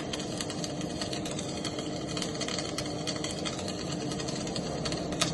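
Electric arc welding: the arc's steady crackling sizzle, full of small irregular pops, over a steady machine hum.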